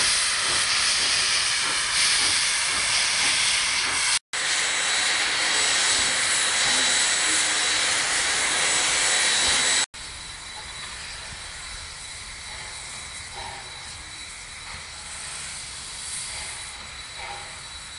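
Steam locomotive venting steam in a loud, steady hiss, the steam jetting from the open cylinder cocks. After a cut about ten seconds in, the hiss drops much quieter, with a few soft puffs from the engine.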